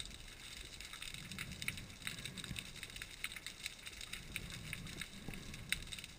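Underwater ambience picked up by a submerged camera: a steady crackle of many small irregular clicks over a low water rumble that swells and fades a few times.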